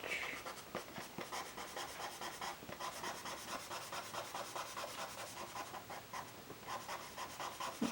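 Stabilo CarboThello pastel pencil scratching across Strathmore vellum-surface mixed-media paper in quick, firmly pressed strokes.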